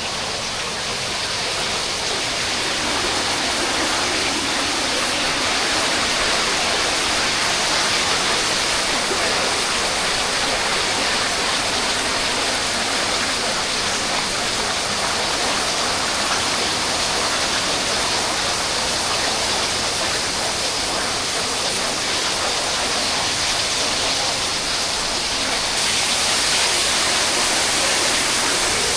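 Waterfall: falling water making a steady, dense rushing noise, growing slightly louder a second or two in and again near the end.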